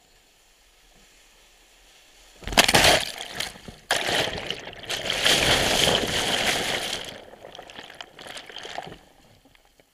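Sea water breaking and surging around a sea kayak. A sudden crash of water comes about two and a half seconds in, then a second surge a second later. Rushing, sloshing water follows and fades over the next few seconds.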